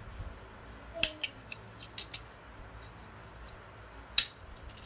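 Sharp plastic snips of a hobby nipper cutting model-kit parts off their runners. There is a quick cluster of snips about a second in, two more around two seconds, and a single louder snip near the end.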